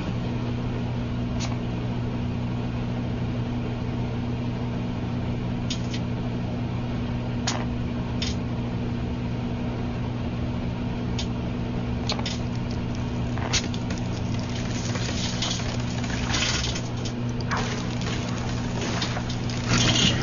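Microwave oven running with a steady low hum. Sharp snapping crackles come from the mobile phone inside as it arcs and sparks, a few at first, then more and more often in the last several seconds.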